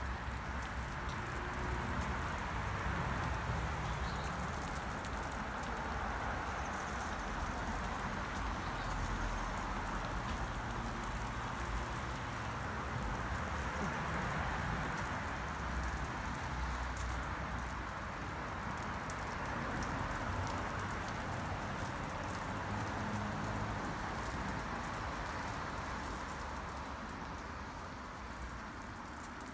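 Steady rain falling and pattering on wet ground and a plastic goat shelter, an even hiss throughout with an uneven low rumble beneath.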